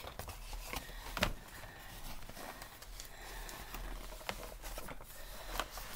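Rustling and a few sharp knocks as a cardboard subscription box and its packaging are handled, over a steady low hum.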